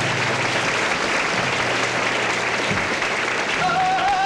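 Theatre audience applauding, a dense steady clapping. Near the end a man's flamenco singing voice comes in over the applause.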